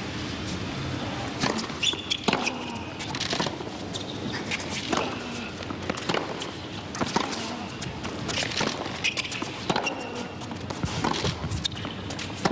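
Tennis ball being struck back and forth with rackets in a baseline rally, a sharp pop about every second or so. Between the shots come short high squeaks of shoes on the hard court.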